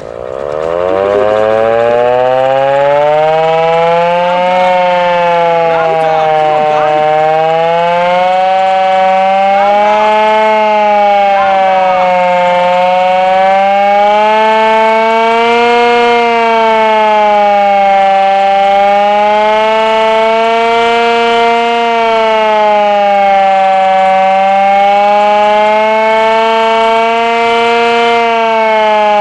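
Hand-cranked air raid siren made by Carter Nelson, loud, winding up from a low pitch over the first couple of seconds and then wailing up and down, its pitch rising and falling about every five or six seconds: the rising-and-falling air raid alert signal.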